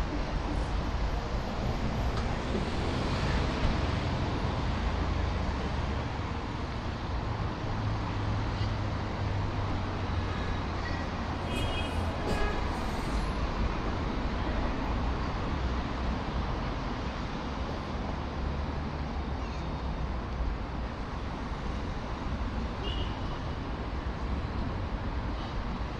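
Steady city road traffic: cars and buses passing on a busy avenue, a continuous low engine-and-tyre rumble. A few brief ticks and short high squeaks are heard about halfway through.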